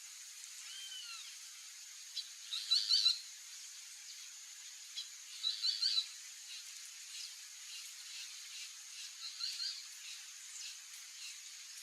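Boat-billed flycatcher calling: three short, harsh bursts of notes a few seconds apart, with fainter chirps from other birds and a steady high-pitched tone behind them.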